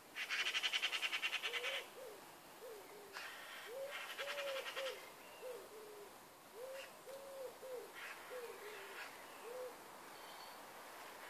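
Bird calls: soft, low cooing notes repeated in short phrases of three to five, with a loud, rapid rattling chatter in the first two seconds and again from about three to five seconds in.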